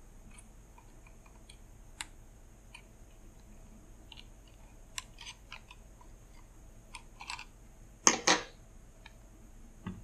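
Scattered small clicks and scrapes of tweezers and fingers working an Elite-C controller board out of its socket on a Corne keyboard, with a louder double knock about eight seconds in.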